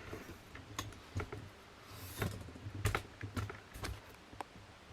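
Light, irregular clicks and taps, about a dozen, from objects being handled.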